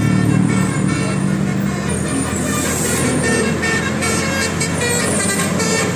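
A bus's 'telolet' basuri melodic air horn sounding a run of changing notes, several tones at once, over the low running of the bus.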